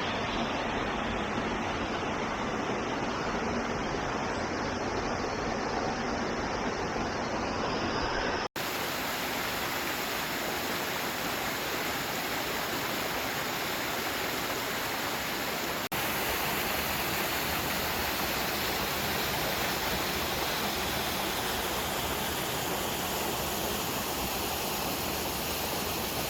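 Steady rushing of a waterfall, with a brief dropout about eight seconds in and a slight change in the sound at that point and again about halfway through.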